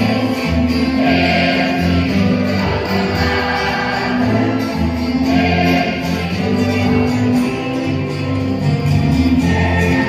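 Many voices singing together in unison, like a choir, over instrumental accompaniment with a stepping bass line, in sustained notes and a steady, loud song.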